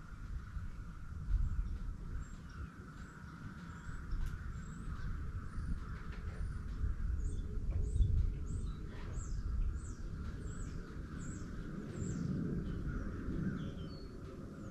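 A bird calling a run of short, high, falling chirps, about two a second, through the middle stretch, over a steady high hum and a low outdoor rumble.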